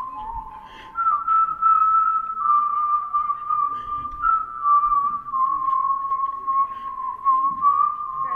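Slow whistled melody: a single clear tone holding long notes and moving up and down in small steps.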